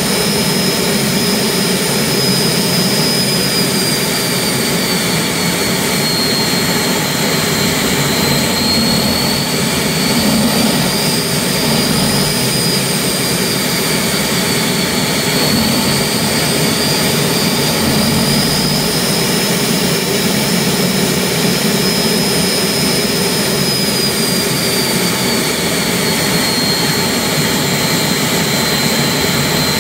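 Turbomeca gas-turbine engine running on a ground-test stand: a steady turbine roar with a high whine that slowly drifts up and down in pitch.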